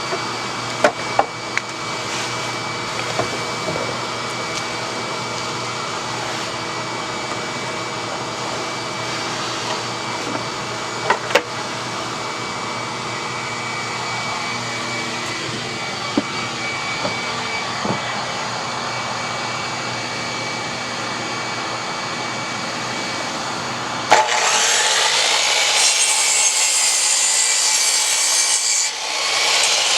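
A steady machine drone with a high whine, broken by a few sharp knocks. About 24 s in it changes abruptly to a harsher, higher hiss.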